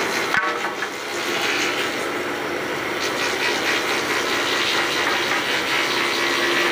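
Thickness planer running with a mahogany plank feeding through it: a steady machine noise of motor and cutter head with a low hum. There is one brief click about half a second in.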